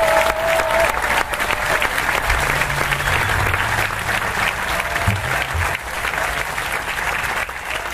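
Theatre audience applauding, the dense clapping easing off slightly toward the end.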